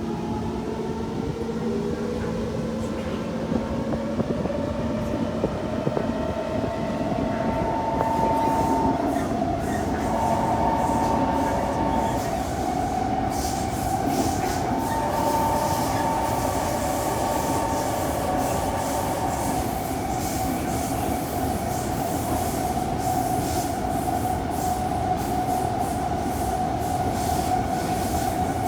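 Kawasaki C151 metro train running underground: the traction motor whine climbs in pitch over the first several seconds as the train gathers speed, then holds steady at cruising speed. Under it is constant wheel and rail rumble, with rail clicks through the second half.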